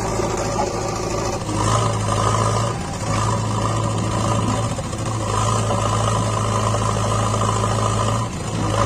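JCB 3DX backhoe loader's diesel engine running steadily, its note swelling and briefly dipping every couple of seconds.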